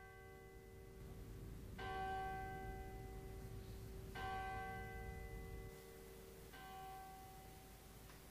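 A large bell tolling slowly, struck about every two and a half seconds, each stroke ringing on as the next comes. A low rumble runs underneath and stops about six seconds in.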